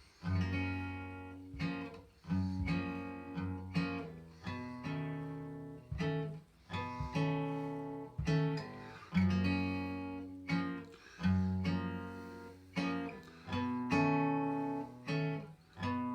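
Solo acoustic guitar playing a slow chord pattern, each chord struck and left to ring and fade before the next: an instrumental introduction with no voice yet.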